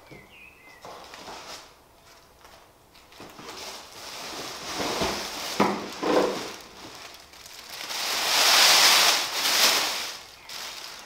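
Plastic packaging bag and cardboard box rustling as a self-propelled wheelchair wheel is lifted out of its box and unwrapped, with a sharp knock about halfway and the loudest crinkling of plastic near the end.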